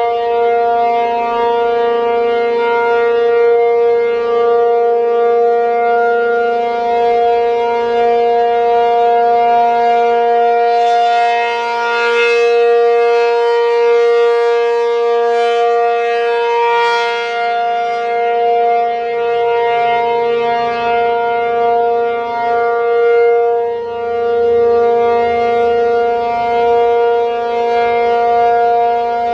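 ACA P-50 outdoor warning siren sounding its steady alert signal, a continuous tone held at one pitch while its loudness slowly swells and fades. It is running the full three-minute alert because it missed the cancel tones during a test.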